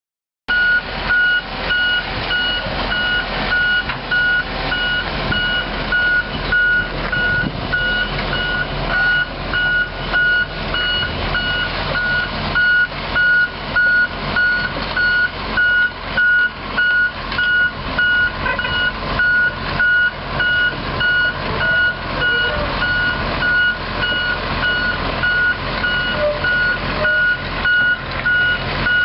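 Excavator's warning alarm beeping steadily, about once a second, over the Komatsu six-cylinder diesel engine running.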